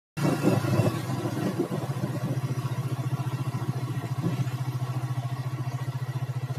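Motorcycle engine running steadily as the bike is ridden at low speed: a low drone with a rapid, even pulse. It cuts in abruptly just after the start.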